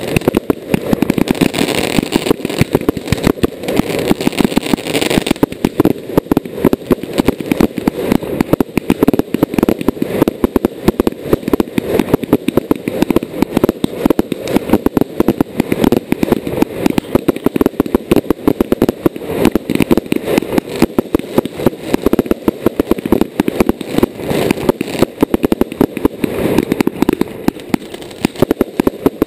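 Fireworks display heard at close range: a dense, unbroken barrage of bangs and crackles from aerial shells and ground-fired fountains going off in quick succession.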